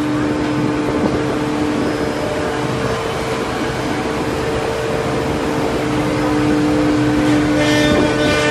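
Steady woodworking-machine noise from a two-head CNC mortising machine: its spindles whine at two steady pitches over a constant hiss of workshop machinery. The lower whine drops out for a few seconds midway and returns.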